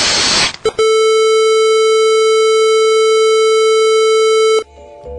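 A loud, harsh noise cuts off about half a second in, then a single steady electronic beep tone holds for nearly four seconds and stops suddenly. Quiet music starts near the end.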